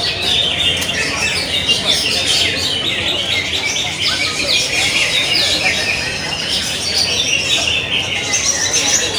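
Many green leafbirds singing at once: a dense, continuous stream of overlapping rapid chirps and whistled phrases, over a faint murmur of voices.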